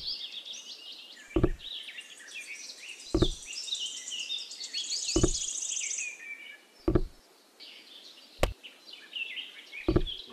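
Small birds chirping and twittering continuously, with a short low knock about every one and a half seconds as miniature clay brick wall pieces are set down and pressed into place.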